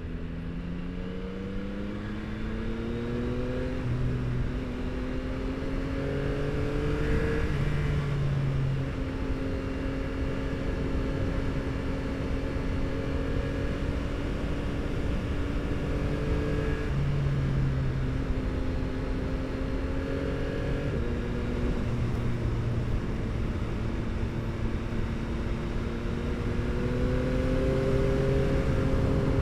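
Yamaha R9's 890 cc inline three-cylinder engine through an Akrapovič exhaust, heard from the bike while riding. The revs climb and drop through several gear changes, with steady cruising stretches between them, over wind noise.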